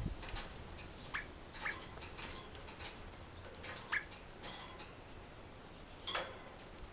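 Eastern rosella in a wire cage making a few short, sharp clicks and chirps, spaced a second or two apart, as it climbs about the bars.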